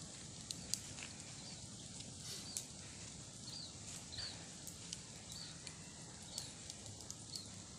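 Open wood fire crackling with scattered sharp pops as it burns around a row of bamboo tubes. Short high chirps sound several times in the background.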